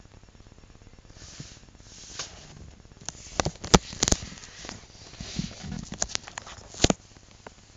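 Paper sheets being handled and shifted, rustling, with a run of sharp clicks and knocks from about three to seven seconds in, the loudest near four seconds and just before seven.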